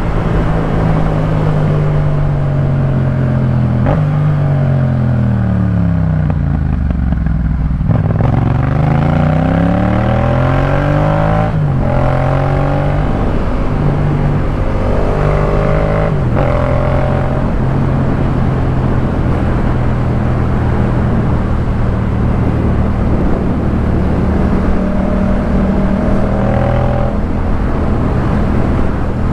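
Yamaha MT-07's parallel-twin engine through a Jeskap K4 full exhaust while riding. The revs fall about four seconds in, then climb again, with a couple of quick gear changes around twelve and sixteen seconds in, and the engine then runs steadily at cruising revs.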